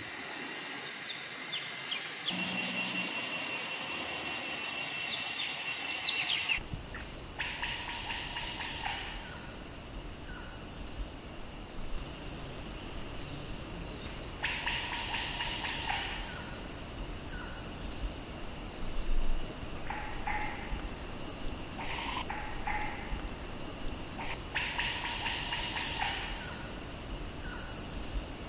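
Forest ambience with no sound from the tiger. A buzzing trill runs for the first few seconds. Then birds call over and over, each call lasting a second or two and coming back every several seconds, with faint high twittering, over a steady high insect drone and a low background rumble.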